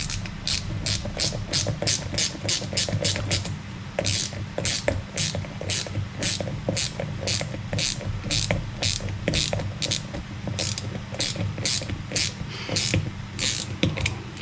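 Ratchet wrench clicking as it is worked back and forth: a fast run of clicks for the first few seconds, then slower, more spaced strokes.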